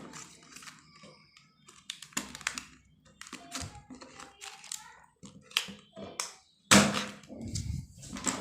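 Pens and their packaging being handled: an irregular run of taps, clicks and plastic crackles, with the loudest knock a little under seven seconds in.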